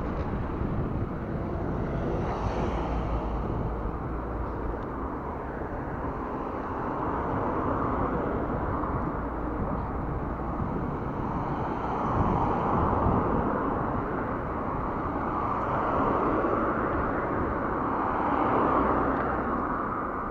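Wind rushing over a handlebar-mounted action camera's microphone on a moving bicycle, with road noise and traffic. The noise swells a few times, about halfway through and near the end.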